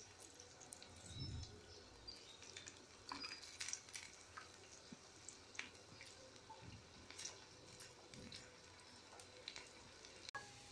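Faint, irregular ticks and pops of water heating in an aluminium pot, small bubbles forming as it comes toward the boil.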